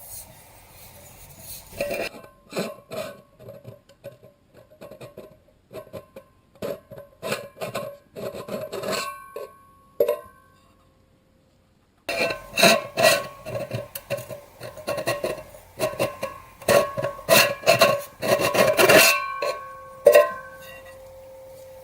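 Titanium Bot bottle-pot being handled: repeated clinks and knocks of titanium against titanium, each ringing briefly at the same few pitches. The sound stops for about two seconds midway, then resumes more densely.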